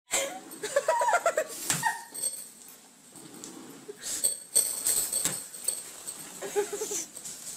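A pet animal's short, high whining cries, a quick run of them about half a second in and another near the end, with a few sharp knocks in between.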